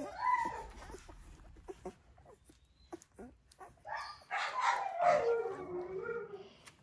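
Alaskan Malamute whimpering: a short whine right at the start, then faint clicks, then a louder, longer whine about four seconds in that slides down in pitch.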